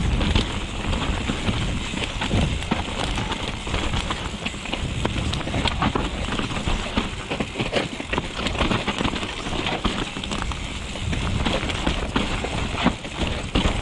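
Mountain bike being ridden along a rough dirt trail: tyres rumbling over the ground, chain and frame rattling, with many sharp knocks from bumps and wind noise on the action camera's microphone.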